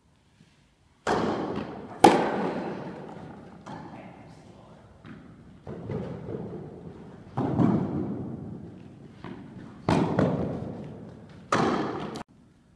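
Tennis ball being struck by rackets and bouncing on an indoor hard court during a serve and rally, about nine sharp hits, each ringing out with a long echo in the hall. It starts about a second in and stops abruptly near the end.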